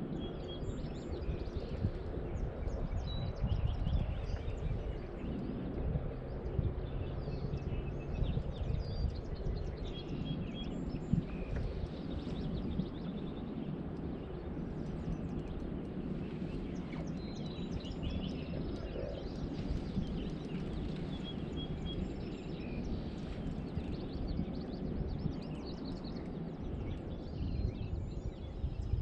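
Songbirds chirping in short, scattered calls over a steady low rumble.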